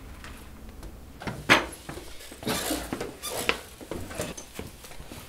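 Scattered handling noises in a small room: a few sharp knocks, the loudest about a second and a half in, with short squeaks and rustling.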